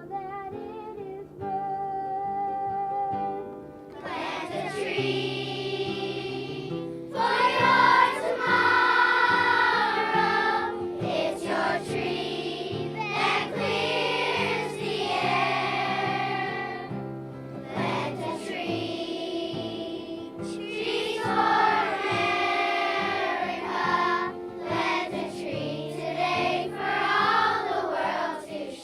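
Group of children singing a song about planting trees over an instrumental accompaniment, the accompaniment playing alone for the first few seconds before the voices come in.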